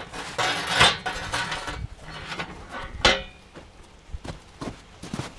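Metal clanking and ringing: two loud sharp strikes, one about a second in and one about three seconds in, with ringing after the first and smaller clinks and knocks around them.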